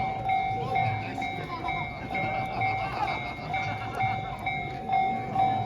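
Japanese railway level-crossing alarm ringing: a steady electronic two-tone 'kan-kan', about two strokes a second.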